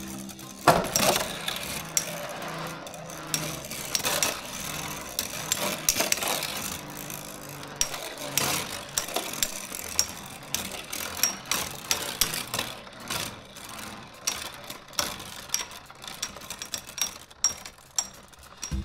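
Two spinning tops knocking together on a clear plastic stadium floor: a stainless-steel Meteo L-Drago Beyblade repeatedly striking another top with irregular sharp metallic clicks and rattles, with a loud knock about a second in. The rubbing contact is L-Drago's spin steal, taking spin from the opponent.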